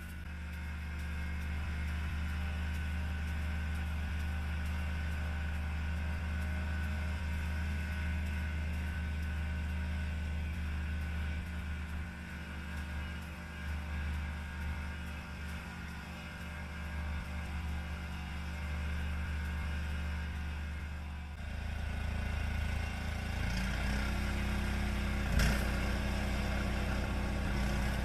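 Yamaha YT1070 snowblower engine running steadily. About 21 seconds in its note turns lower and heavier, and a single sharp click sounds a few seconds later.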